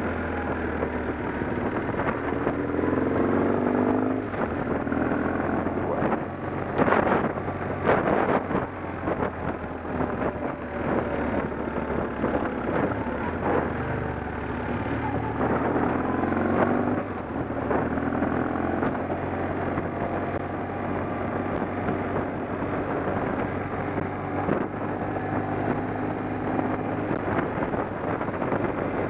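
An engine running steadily, with wind on the microphone, and two loud knocks about seven and eight seconds in.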